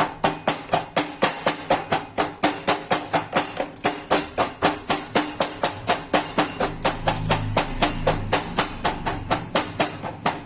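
Pestle pounding roasted cloves and black peppercorns in a mortar to coarsely crush them, in steady strikes about four a second.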